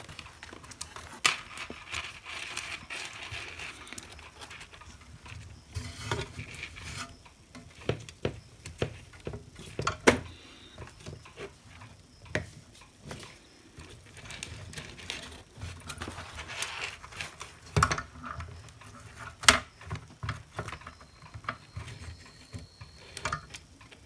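Hands working the plastic handle of a Lukey 852D+ hot air gun and threading its wires through it: scattered clicks and taps of plastic parts with light rustling in between.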